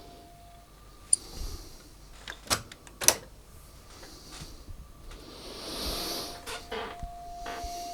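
Akai GX-77 reel-to-reel deck during alignment: a steady test tone cuts off just after the start, then several sharp mechanical clicks, the loudest about three seconds in. A rushing swish rises and falls around six seconds in, and the steady tone comes back on.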